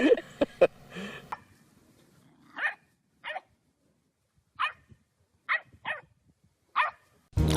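A dog barking: six short, separate barks spread over a few seconds, two of them close together.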